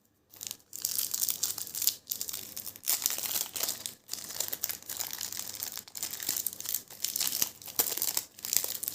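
A trading card pack wrapper being torn open and crinkled by hand. The crackling goes on almost without a break, with short pauses about every two seconds.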